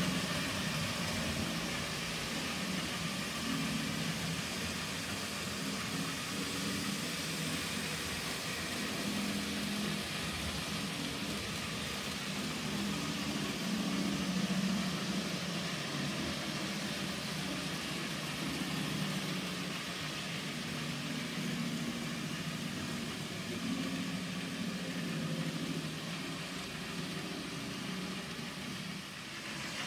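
Several N gauge model trains running at once: a steady hum and rumble from their small electric motors and wheels on the track, wavering a little as they go.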